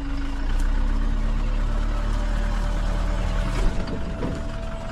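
Steady low rumble of a vehicle engine running, which eases off about three and a half seconds in, with a brief knock at that point.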